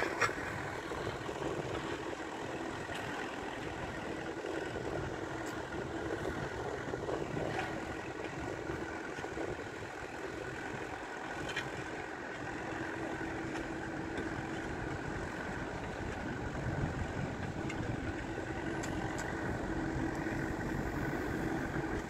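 Farm tractor engine running steadily as the tractor pulls a disc plough through dry soil.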